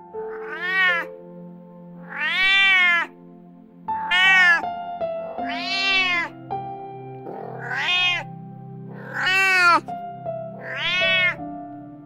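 Domestic cat meowing seven times, each meow rising then falling in pitch, roughly one every one and a half seconds.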